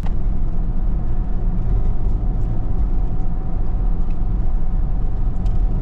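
Steady low rumble of a car driving, engine and road noise heard from inside the cabin, with a faint steady hum above it.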